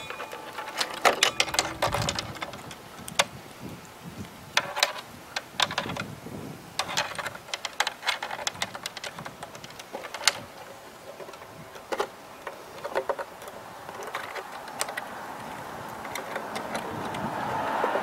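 Hard plastic scooter handlebar nose cover clicking, tapping and knocking as it is handled and worked onto the handlebars, a scatter of irregular short clicks. A rushing noise swells in the last couple of seconds.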